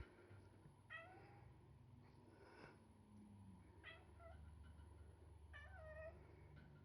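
Kitten mewing softly: three short, high mews, about a second in, around four seconds, and a slightly longer one near six seconds.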